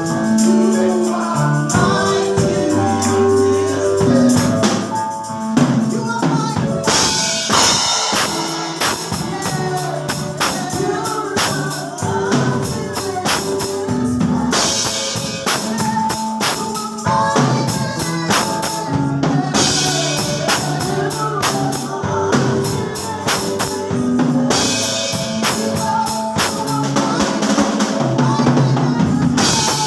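Live church praise music: a drum kit and tambourine keeping a steady beat under pitched instruments and voices singing.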